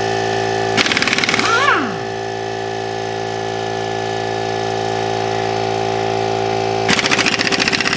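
Hart half-inch pneumatic impact wrench hammering on a wheel's lug nuts in two bursts, about a second in for nearly a second and again near the end for about two seconds, each ending in a falling whine as the air motor spins down. A steady mechanical hum runs underneath.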